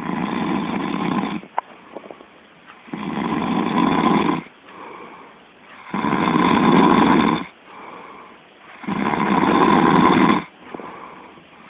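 A man snoring heavily: four loud snores about three seconds apart, with quieter breathing between them.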